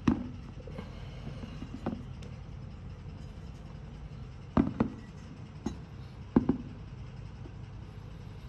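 Handling knocks and taps over a steady low hum: a sharp knock at the start, a lighter one, then two double knocks, as the cylinder head and its packaging are handled.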